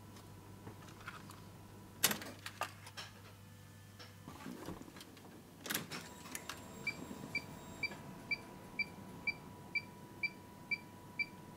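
A few sharp clicks as the Jaguar XKR's ignition is switched on, then ten short, high electronic blips about two a second from the newly fitted RealGauge gauge module; ten blips at ignition-on are harmless and can be ignored.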